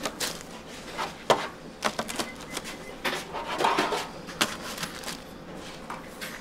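Irregular light knocks and clicks of kitchen utensils and trays being handled during bakery work, a handful of sharp taps spread unevenly over a low steady background hum.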